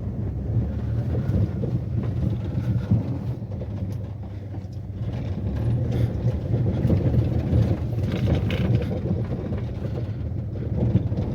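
Inside the cabin of a moving 2012 Maruti Suzuki WagonR: a steady low road and engine rumble with irregular rattling from the roof and rear, loose trim that the owner puts down to the car's age.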